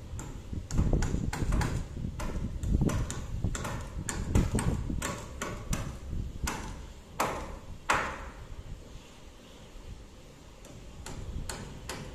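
Hammers driving nails through 2"x3" timber purlins into wooden roof rafters: irregular sharp strikes, some with a short ring. The strikes thin out after about eight seconds and pick up again near the end.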